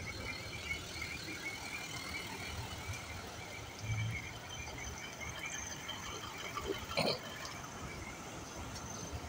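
Steady low hum of road traffic in a jam on wet streets, with a faint high warbling chirp that keeps repeating. There is a low thump about four seconds in and a short sharp sound about seven seconds in.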